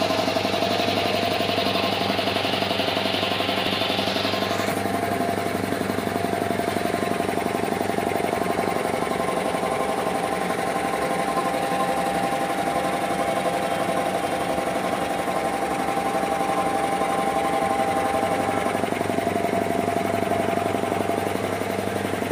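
Belt-driven single-piston air compressor with a 1 HP single-phase electric motor running steadily: a fast, even pumping of the piston over the motor's hum. A high hiss over it cuts off suddenly about five seconds in.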